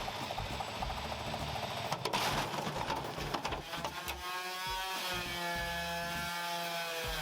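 Jerry-rigged washing machine running at full power, its drum and belt drive clattering, with a cluster of knocks about two seconds in. From about four seconds a motor whine takes over and sinks slightly in pitch toward the end.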